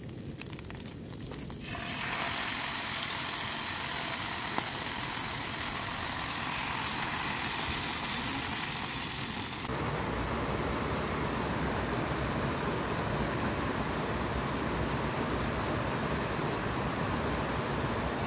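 Sausage slices sizzling in a pan on a gas-canister camp stove, a steady high hiss. After about ten seconds it gives way to a lower, even rushing noise.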